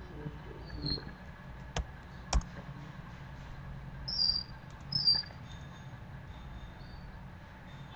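A few sharp computer keyboard clicks as a command is typed and entered. Short high chirps come through as well, two louder ones about four and five seconds in, over a low steady hum.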